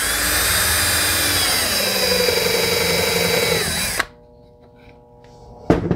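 DeWalt 20V cordless drill driver running a countersink starter bit into a wooden board, pre-drilling a pilot hole for a wood screw. The motor whines steadily, its pitch sagging from about two seconds in as the bit bites, and it stops abruptly about four seconds in; a single knock follows near the end.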